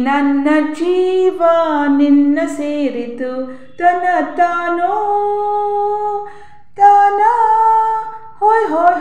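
A woman singing solo without accompaniment, holding long notes, with short breaths between phrases about six and eight seconds in.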